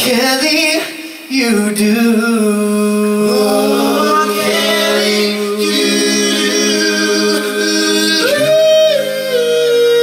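Four male voices singing in close harmony, holding long sustained chords, with a short break about a second in and one voice sliding up to a higher held note near the end.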